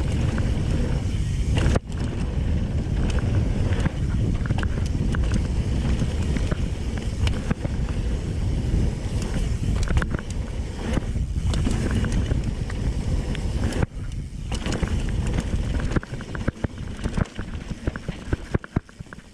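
Mountain bike ridden fast down a dirt trail: a steady loud rumble of tyres and rattling frame, with many short clicks and knocks of chain and parts. About three-quarters of the way in, the rumble breaks up into separate clatters and gets quieter as the bike slows.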